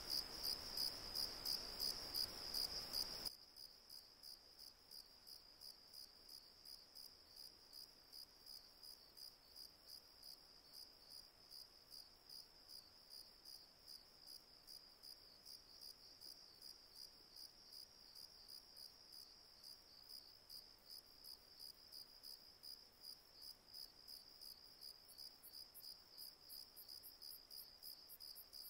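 Cricket chirping in a steady rhythm, about two chirps a second, louder for the first three seconds and then fainter.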